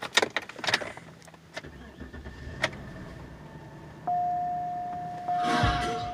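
Keys jangling and clicking at the ignition, then the Cadillac's Northstar V8 starts and idles with only a low, quiet hum inside the cabin. About four seconds in, a dashboard warning chime begins: one steady tone re-struck about once a second.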